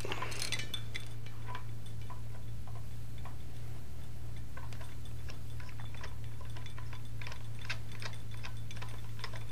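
Faint, scattered small metallic clicks and taps as a medical oxygen regulator's yoke is fitted over a cylinder valve and hand-tightened, over a steady low hum.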